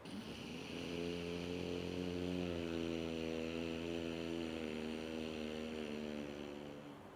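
Ujjayi pranayama breathing: one long, slow breath drawn through a narrowed throat, making a steady, snore-like drone over an airy hiss. It builds about a second in, holds for some six seconds, and fades near the end.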